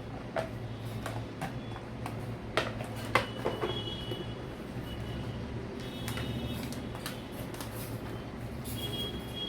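Hands handling a plastic toy kit and its sticker sheet: a few sharp clicks and taps, the loudest two a little over half a second apart about two and a half seconds in, over a steady low background hum.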